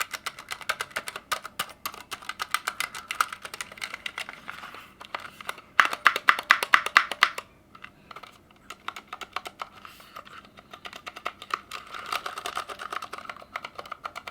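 Fast typing on a Ducky One 2 Mini 60% mechanical keyboard fitted with Cherry MX Silent Red switches: a quick patter of muted key presses, with a louder burst of keystrokes about six seconds in and a short pause just after.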